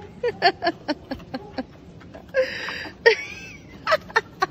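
A person laughing in short breathy bursts, a quick string of chuckles with a longer wheezy laugh a little past the middle.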